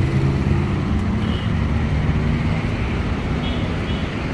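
Steady low rumble of motor traffic, with a couple of brief faint high peeps about a second in and near the end.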